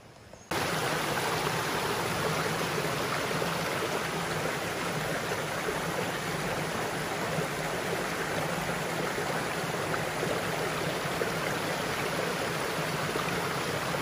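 A small forest stream running over rocks in a little cascade: a steady rush of flowing water that starts abruptly about half a second in.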